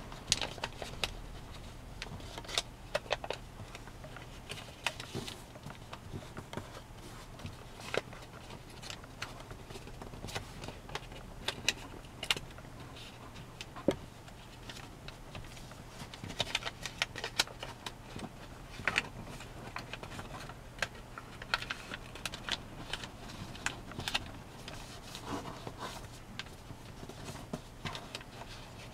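Origami paper being folded and creased by hand, giving irregular crinkles, rustles and soft taps that come in spells, over a faint steady low hum.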